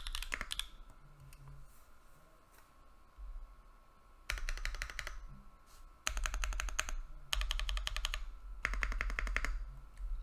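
Monstargear Sangeo65 mechanical keyboard with lubed Holy Panda tactile switches on Kiwi bottom housings being typed on: fast runs of key clacks in short bursts, with a pause of about three and a half seconds after the first burst.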